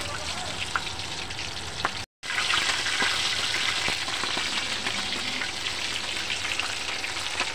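A pork hock deep-frying in hot oil in a wok: steady sizzling with crackles. The sound cuts out for a moment about two seconds in, then comes back louder.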